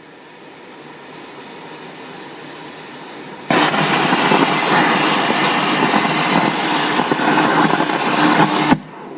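Compressed air hissing steadily from a 100 A air-plasma cutter's torch. About three and a half seconds in, the plasma arc strikes and cuts into a 5 mm steel plate with a loud, dense hissing crackle for about five seconds, then stops suddenly.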